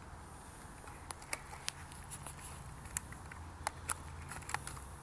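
Scattered small plastic clicks and ticks as hands work the clips and plastic canopy of a Blade CX2 RC helicopter, which are hard to get off, over a low steady background rumble.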